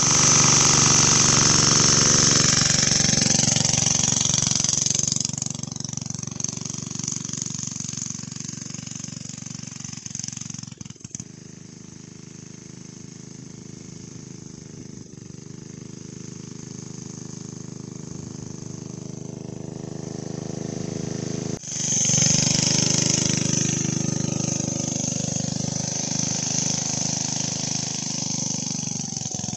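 Single-cylinder 8 hp Briggs & Stratton engine on a homemade go-kart, running under load as the kart pulls away and fades into the distance. After an abrupt cut about 22 seconds in, it is loud again as the kart comes back. The owner finds the kart geared far too high.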